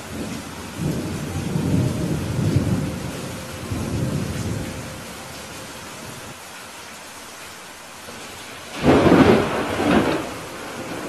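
Heavy rain falling steadily, with a low rolling rumble of thunder over the first few seconds and a louder, sharper thunderclap about nine seconds in that peaks twice and fades within a second or two.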